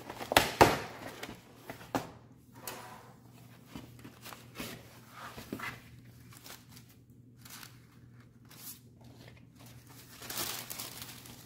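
Kraft cardboard mailer and paper being unfolded and handled by hand: loud paper rustles in the first second, soft scattered rustling after, then a louder crinkly rustle of tissue paper being lifted near the end.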